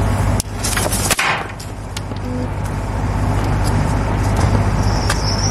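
A small striped firecracker is lit with a torch lighter: a brief hiss, then one sharp pop about a second in. The cracker is a dud that fizzles out instead of going off with a proper bang. A steady low hum runs underneath.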